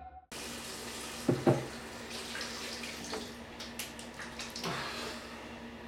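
Tap running into a bathroom sink, a steady rush of water, with two sharp knocks about a second and a half in.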